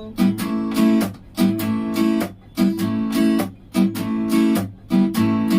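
Guitar strummed in a six-beat waltz pattern (down, up, a palm-muted chuck, up), the cycle repeating evenly about every 1.2 seconds.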